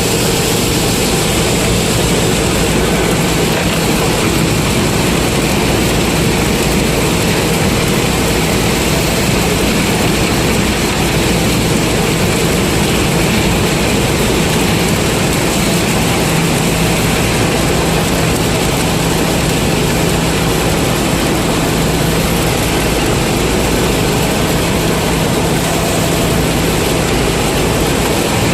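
Combine harvesters' diesel engines and threshing machinery running steadily, a loud continuous mechanical hum with no change in pace.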